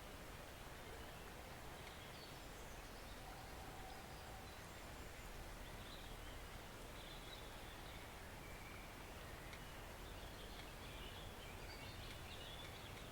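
Woodland stream flowing, a faint steady rushing of water. Small birds give faint high chirps now and then, mostly in the middle and near the end.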